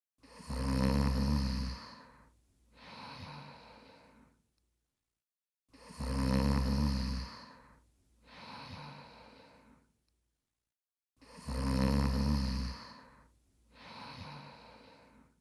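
Snoring in slow, even breaths: three loud inhales, each followed by a quieter exhale, with one breath cycle about every five and a half seconds.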